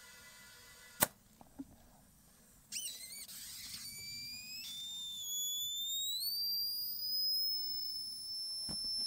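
Compressed air whistling out of a leak in a portable air compressor's hose: a high whistle starts about three seconds in, wavers, then climbs in pitch and holds steady. A sharp click comes about a second in.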